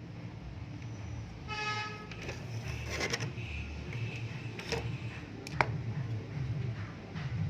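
Traffic noise with a short vehicle horn toot about a second and a half in, over a steady low hum, followed by a few sharp clicks.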